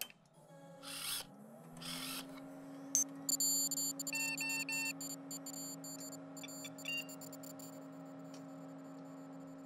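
Sci-fi robot power-up sound effects: two soft whooshes, then a low electronic hum that glides up and settles into a steady drone. Between about three and seven seconds in, its scanning display adds a flurry of clicks, beeps and chirps, including three quick beeps.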